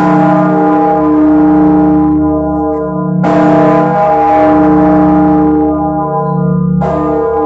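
Church bells ringing: three strikes about three and a half seconds apart, each with a long ringing hum that carries on under the next strike.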